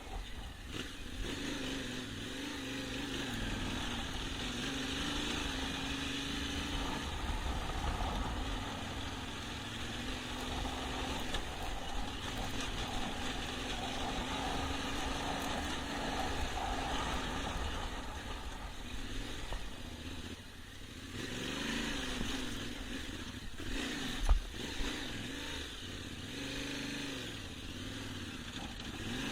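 Yamaha Ténéré 700's parallel-twin engine running while ridden, its revs rising and falling with the throttle, with wind noise on the microphone. Late on there is a single sharp knock.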